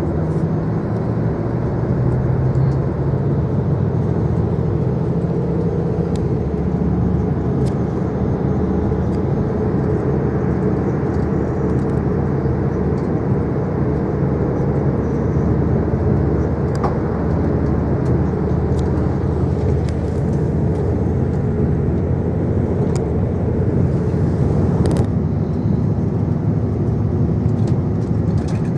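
Inside a diesel passenger train's carriage: the underfloor diesel engine running under power and the wheels rumbling steadily on the rails as the train leaves a station and gathers speed, with a few faint clicks from the track.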